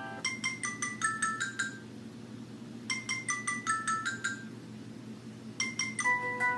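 Samsung Galaxy S4 ringtone: a quick run of short, bright chiming notes, repeated about every two and a half seconds. Near the end the third run is cut short by a different tone of longer held notes.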